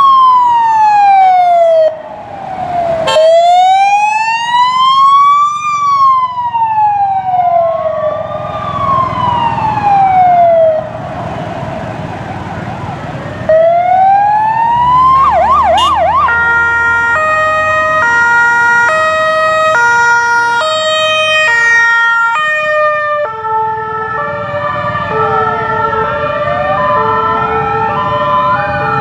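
Police escort sirens. A slow wail rises and falls every couple of seconds for the first ten seconds or so. About fifteen seconds in comes a brief fast yelp, then an alternating two-tone, and near the end several sirens overlap.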